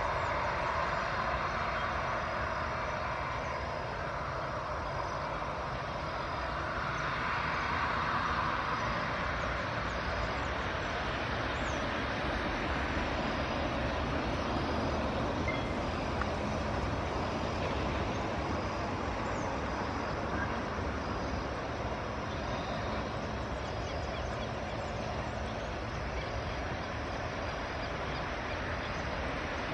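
Airbus A319's jet engines running at taxi power: a steady rumble and hiss that swells slightly near the start and again about eight seconds in.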